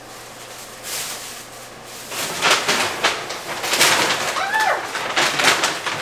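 Shopping bags rustling and crinkling as groceries are taken out of them. The rustling starts about two seconds in and carries on in loud, irregular bursts.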